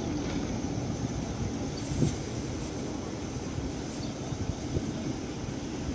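Steady low rumble of vehicle traffic, with a faint click about two seconds in.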